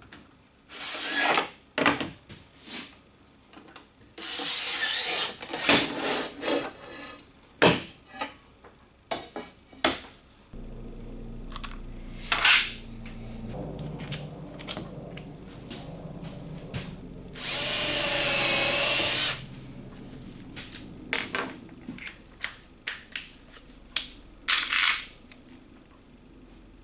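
Power drill running in short bursts and one longer whirring run of nearly two seconds with a wavering pitch, among the clatter of tools and parts being handled. A steady low hum comes in about ten seconds in and runs under the rest.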